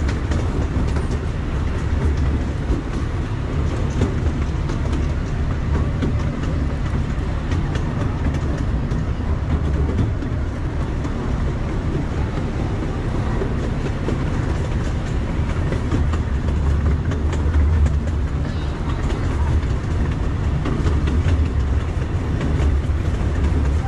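Miniature passenger train running steadily along its track, heard from an open passenger car: a continuous low rumble with light clicking of the wheels over the rail joints.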